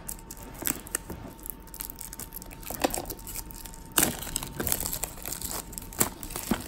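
Clear plastic wrap being peeled off a cardboard box and crumpled in the hand: irregular crinkling and crackling that gets denser and louder about four seconds in.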